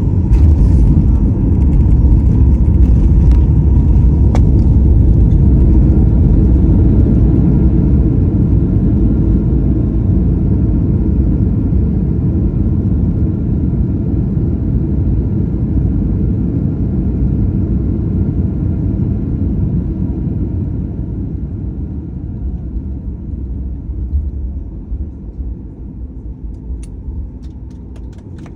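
Airliner landing rollout heard from inside the cabin: a deep rumble from the jet engines and the wheels on the runway. It is loudest in the first several seconds, then dies away steadily as the aircraft slows.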